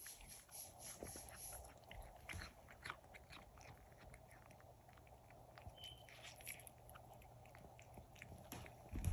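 A cat eating raw meat out of a person's hand: faint, quick, irregular chewing clicks.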